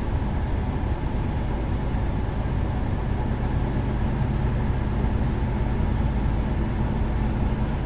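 Heavy truck's engine and road noise heard inside the cab while driving, a steady low drone.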